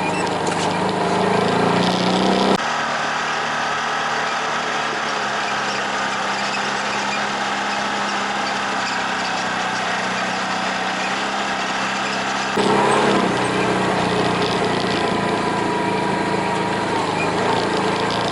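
Off-road vehicle engine running steadily while driving on a trail. The sound changes abruptly twice, a few seconds in and again about two-thirds of the way through.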